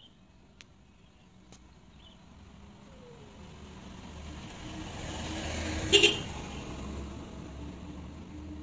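A road vehicle passes by, its noise growing louder over a few seconds and then slowly fading. At its loudest there is one sharp, brief clack.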